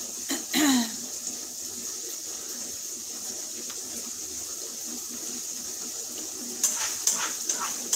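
Ground beef sizzling steadily in a pan as it finishes browning, a constant hiss. About two thirds of the way in come a few short clinks and knocks of a utensil against the pan.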